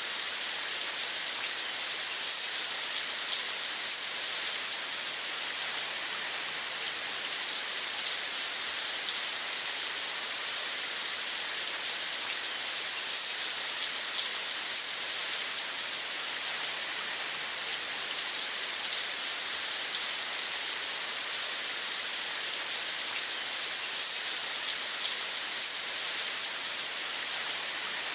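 Steady rain falling: an even, unchanging hiss of many small drops, with no birdsong or other distinct sounds standing out.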